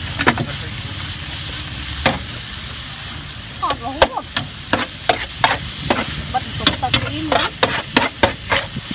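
Stir-fried noodles with bean sprouts, chives and cabbage sizzling steadily on a large flat metal pan, while a metal spatula scrapes and clacks against the pan. The spatula strokes are sparse at first and come quickly from about halfway through.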